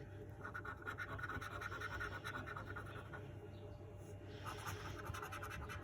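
A coin or fingernail scratching the latex panel off a scratch card in quick, uneven strokes.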